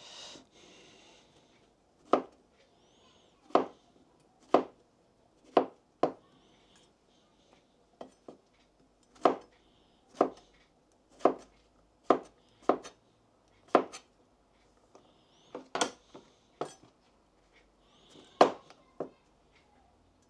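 Kitchen knife cutting mushrooms on a chopping board: single sharp knocks of the blade striking the board, about one a second at an uneven pace.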